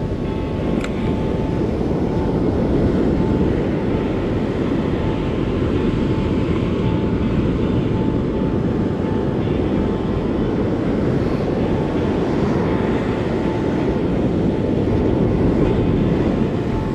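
Steady low rush of wind on the microphone mixed with breaking surf.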